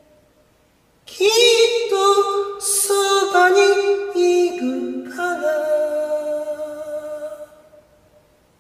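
Singing: a voice holding a few long notes that step up and down in pitch, beginning about a second in and fading out about a second before the end.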